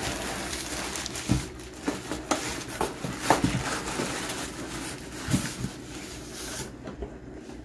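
Packing paper rustling and a cardboard box being handled while a paper-wrapped potted plant is lifted out, with several dull knocks and bumps along the way.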